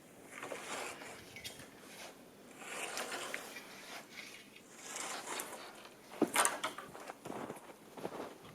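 Irregular crunching and swishing in snow, footsteps and brush or sticks being handled while gathering firewood, with one sharp crack about six seconds in.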